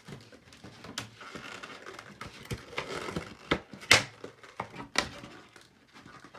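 Pokémon card packaging being handled: crinkling and rustling, with several sharp clicks or taps, the loudest about four seconds in.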